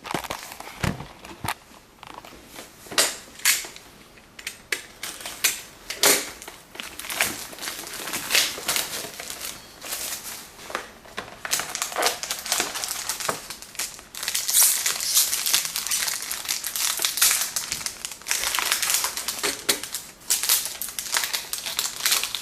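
Plastic shrink-wrap and packaging being torn open and crinkled, with irregular crackles and sharp rustles, as a sealed box of hockey cards is unwrapped. The crinkling is busiest in the second half.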